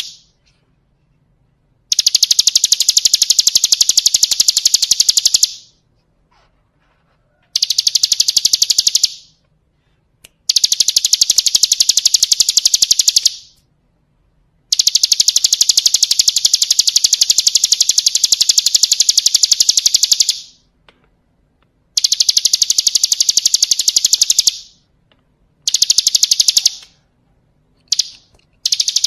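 Bar-winged prinia (ciblek kristal) singing long, very rapid, high-pitched trills in bouts of a few seconds each, separated by short silent pauses.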